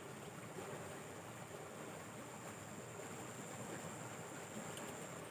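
Steady rush of flowing water from a small stream, with a thin, steady high-pitched whine running through it.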